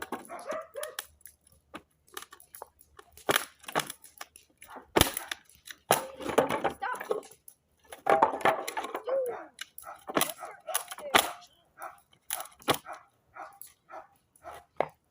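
A dog barking: short barks at irregular intervals, mixed with sharp clicks and knocks.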